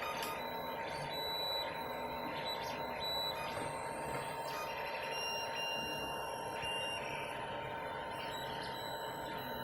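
FDM 3D printer running a print: a steady fan whir under short whining tones from the stepper motors, changing pitch every second or so as the print head moves.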